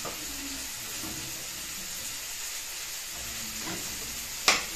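Steady hiss of pots cooking on a gas stove, with a single sharp knock of the stirring utensil against a pot near the end.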